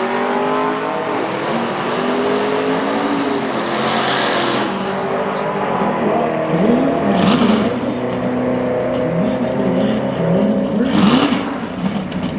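Drag-strip burnout: a C7 Corvette's V8 revs up and down in repeated blips while its rear tyres spin, with bursts of tyre squeal and hiss about four, seven and eleven seconds in.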